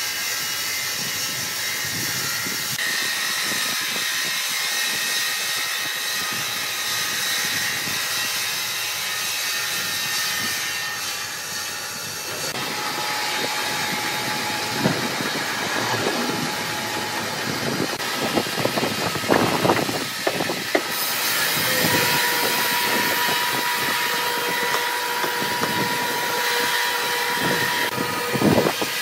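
Large band sawmill running, its blade cutting through a giant log with a steady high-pitched whine and hiss. The sound changes character about twelve seconds in, and in the later part there are scattered knocks and clatters.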